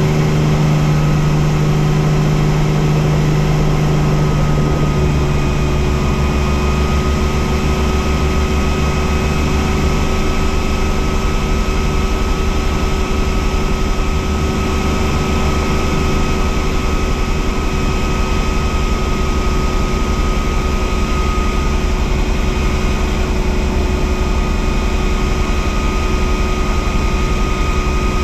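Bell 47 helicopter's piston engine and two-blade main rotor running at climb power after takeoff: a loud, steady drone with a thin high whine over it. About five seconds in, the tone of the drone shifts.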